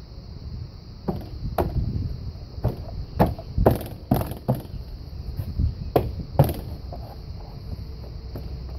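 About ten sharp, irregular knocks on a car's plastic interior door trim panel, spread over some five seconds, as a hand presses and taps the refitted panel home against the door.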